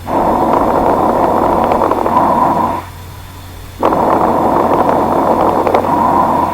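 Auscultation recording of lung sounds with fine crackles: breath noise in two long phases of about three seconds, a short pause between, with brief, high-pitched, discontinuous crackles through each breath. Fine crackles are an added lung sound, typical of fluid in the alveoli and of small airways popping open.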